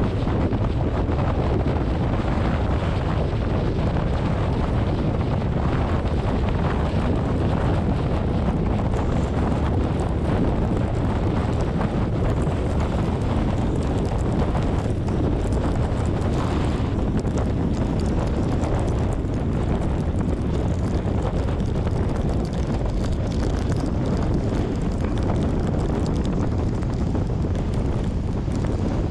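Car driving: a steady low rumble of road and wind noise that holds at an even level with no breaks.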